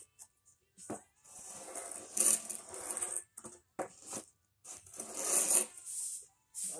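Push broom scraping over sand and pavers in a few rasping strokes, each one to two seconds long, with short pauses between them.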